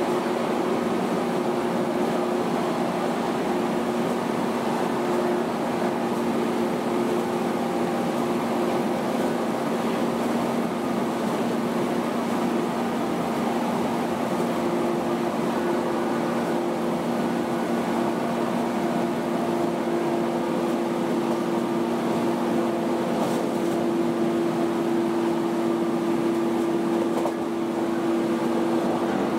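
JR 115 series electric train's MT54 DC traction motors and gearing, heard from inside the motor car while running at a steady speed: a steady two-tone whine over rail and running noise. The upper tone gets louder about halfway through.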